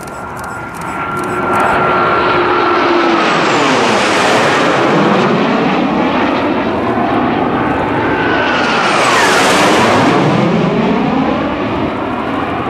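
Military jet fighters flying past low in formation, the jet engine noise swelling as they close in. A high whine drops in pitch as the jets pass about four seconds in, and a second pass follows about nine seconds in with the same falling whine.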